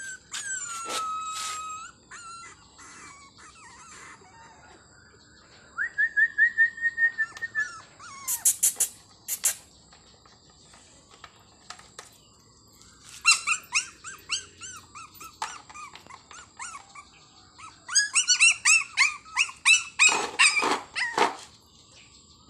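Month-old puppies squealing and whining: high-pitched, arching cries, one long drawn-out whine, then quick runs of short squeals.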